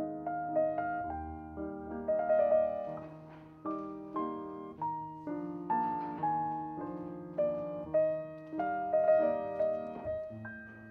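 Solo piano music: a melody over chords, each note struck and left to ring out.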